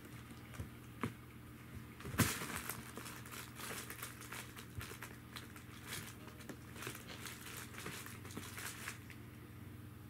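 Felt cat tunnel rustling and scraping as a kitten scrambles and paws inside it. A few light taps at first, a sharp thump about two seconds in, then several seconds of brisk, irregular scratching and rustling that eases off near the end.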